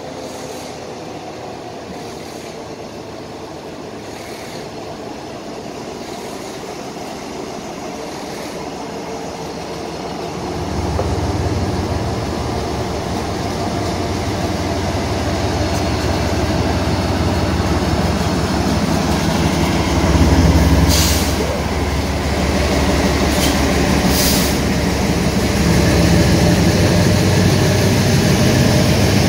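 Diesel freight locomotives approaching and passing at close range, their engine rumble growing steadily louder, jumping about a third of the way in and peaking about two-thirds through as the lead units go by, with the rolling noise of the train behind them.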